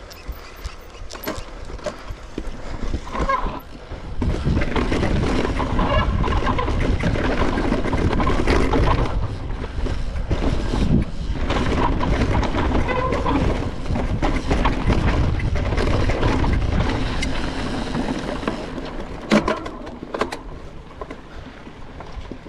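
Mountain bike descending a dirt trail: rattling clicks from the bike over the bumps, then from about four seconds in a heavy wind rumble on the microphone mixed with tyre and trail noise, easing near the end, where one sharp knock stands out.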